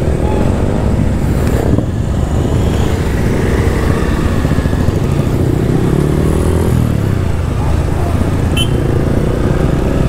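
Motorcycle engine running as the bike pulls away into traffic, its pitch rising a few times as it accelerates, over steady road and wind noise.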